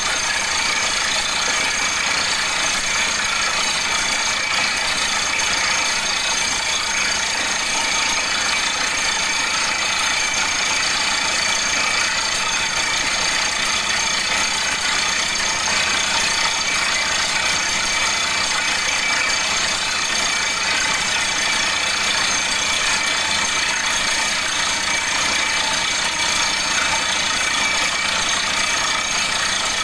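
Borewell drilling rig running as it drills: a steady mechanical drone with a rattle and a strong hiss, unchanging throughout.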